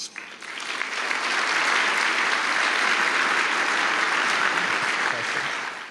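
Large audience applauding, swelling in over the first second, holding steady, and dying away near the end.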